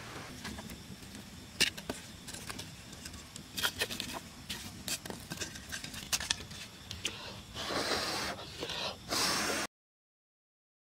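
Dry twigs and kindling crackling and snapping as a small wood fire is lit in a clay stove's firebox, with sharp clicks scattered throughout. Near the end come a couple of seconds of rushing noise, then the sound cuts off suddenly.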